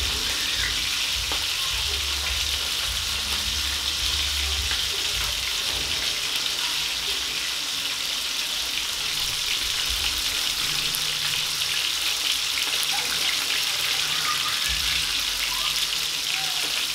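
Whole tilapia frying in hot oil in a frying pan, a steady sizzle.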